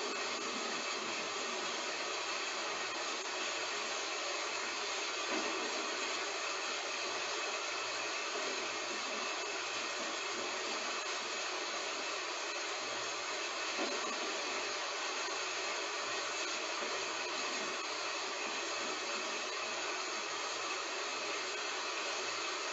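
Heavy rain falling steadily, an even hiss with a couple of slightly louder hits along the way.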